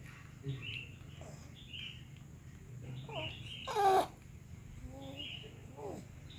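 A baby cooing and babbling in a few short, wavering voiced sounds, with the loudest squeal about four seconds in. Short high chirps, likely from a bird, repeat in the background.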